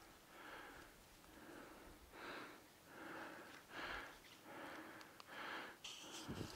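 Faint, rhythmic breathing of a man walking through woodland, a soft huff a little more than once a second, with his steps in dry leaf litter underneath.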